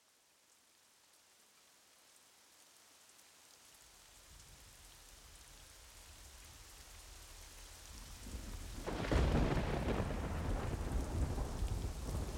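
Rain fading in, with a low rumble of thunder building from about four seconds in and a sudden loud clap of thunder about nine seconds in that rolls on.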